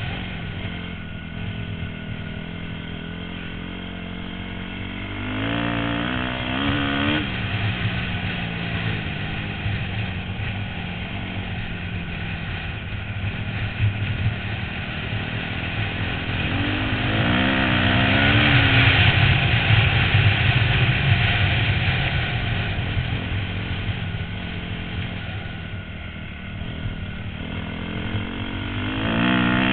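A 250 dirt bike's engine running at speed, its pitch climbing in short surges three times as the bike accelerates, heard from a helmet-mounted camera with wind noise over it.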